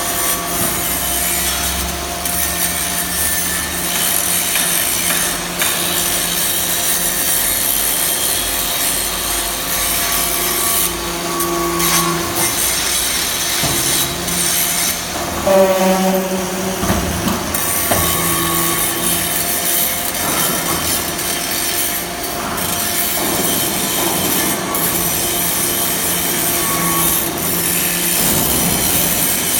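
Metal-chip briquetting press running as it compacts metal shavings: a steady machine hum under continuous scraping of metal, with a brief, louder squeal about halfway through.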